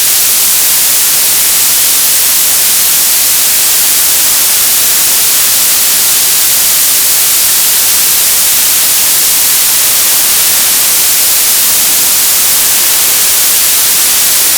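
Television static: a loud, steady hiss of white noise, strongest in the treble, unbroken and unchanging.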